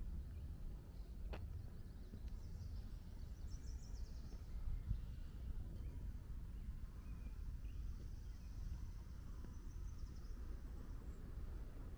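Outdoor park ambience: a steady low rumble with birds chirping faintly in the trees, and a single sharp click about a second in.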